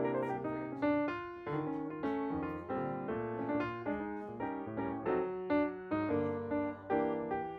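Background piano music: a gentle melody of single struck notes and chords, a couple of notes a second.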